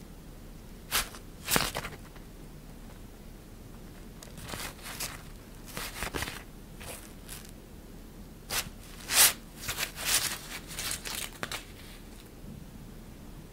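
Shiny synthetic fabric rustling and crinkling in short irregular bursts as a cat-teaser wand is pushed and dragged under it. The loudest burst comes about nine seconds in, and the rustling stops about two seconds before the end.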